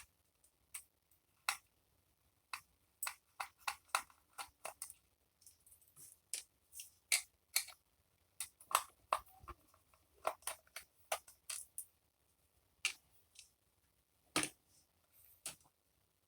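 Irregular sharp plastic clicks and taps from handling the parts of a disassembled computer mouse.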